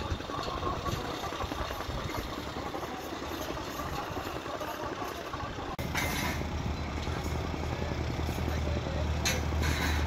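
Construction-site noise with a heavy engine running steadily; after an abrupt change about six seconds in, its low, even hum grows stronger.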